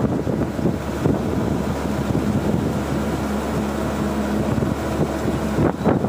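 Tracked combine harvester's engine and unloading auger running steadily as threshed paddy grain pours from the spout into a trailer: a constant mechanical drone with a low hum.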